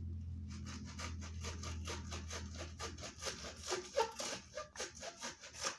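Rapid, irregular scraping and snipping as the rubbery shell of a moonball is cut and picked apart by hand.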